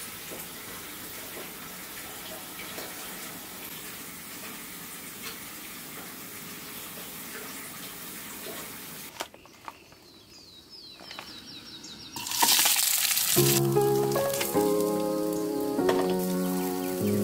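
A steady, even hiss for about nine seconds, then a quieter stretch with a few sharp clicks and a brief loud rush of noise. Background music with clear melodic notes starts near the end.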